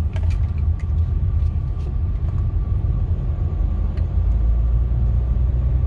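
Engine and road noise heard inside the cabin of a moving 2009 Hyundai Santa Fe: a steady low rumble that grows heavier about four seconds in.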